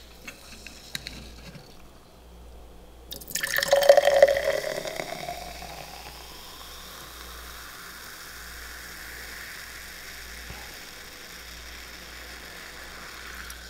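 Sparkling water poured from a can into a tall glass. It starts with a loud gush about three seconds in, then settles into a steady fizz of bubbles as the glass fills with foam.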